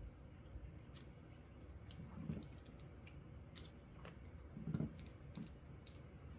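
Faint handling noise of photocards and thin clear plastic sleeves: light clicks and crinkles as a card is slid into a sleeve, with two soft low bumps, about two seconds in and louder just before five seconds.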